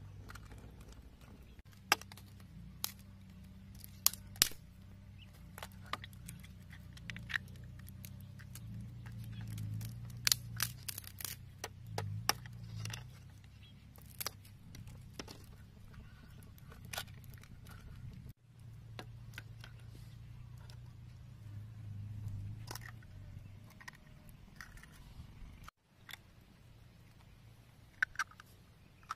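Eggs being cracked one after another over a split green bamboo tube: sharp, irregular clicks and taps of eggshell against bamboo and shells breaking, over a low steady hum.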